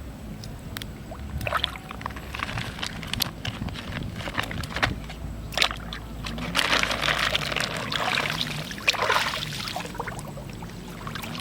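Water splashing and sloshing with scattered knocks and clicks, growing louder about halfway through.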